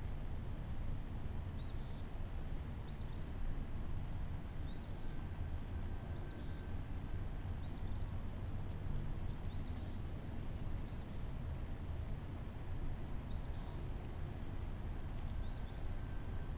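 Outdoor ambience: a small bird repeats a short high chirp about once a second over a steady high-pitched hiss and a low rumble.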